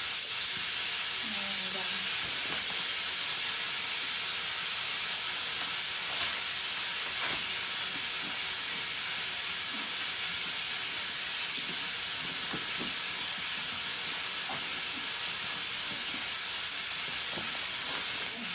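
A steady high hiss, with faint scattered knocks and rustles from a fabric insulation cover being fitted over a portable fridge.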